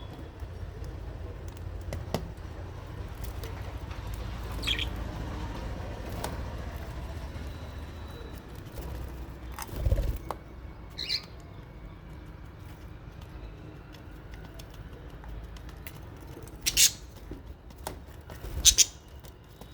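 Aviary budgies and lovebirds: a few short chirps, then two loud sharp squawks about two seconds apart near the end, over a steady low rumble, with a single thump about halfway.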